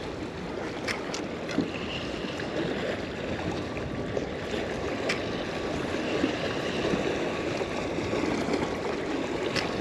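Small waves lapping and washing against the jetty's boulders, a steady wash of water noise, with a few faint clicks.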